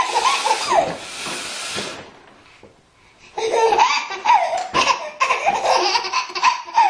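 A baby belly-laughing in repeated high-pitched bursts, breaking off into a short lull about two seconds in and then laughing again.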